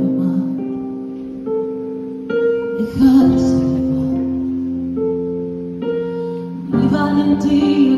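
Live ballad: held instrumental chords struck every second or two, with a woman's singing voice coming in over them about three seconds in and again near the end.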